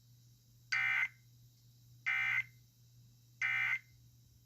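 Three short bursts of shrill digital data tones, about a second apart: the Emergency Alert System SAME end-of-message (EOM) signal that closes a warning broadcast.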